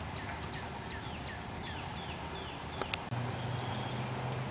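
A bird calling in a run of short, falling chirps, about three a second, over a faint high insect tone. About three seconds in come a couple of clicks, and then the sound changes abruptly to a low steady hum.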